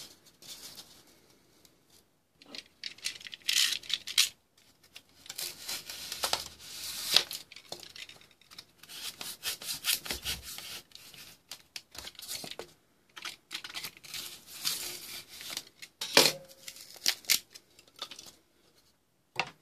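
Utility knife cutting through a block of extruded polystyrene (XPS) foam board: repeated cutting strokes in several spells of a second or more, with short pauses between.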